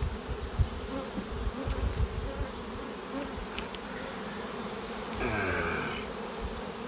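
Honeybees buzzing steadily over an open hive, with a few low bumps in the first two seconds and a louder swell of sound for about a second near the end.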